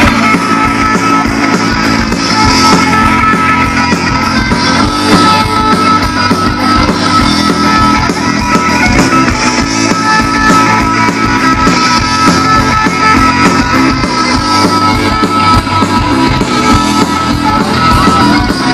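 Live rock band playing an instrumental passage, electric guitars to the fore over a steady beat.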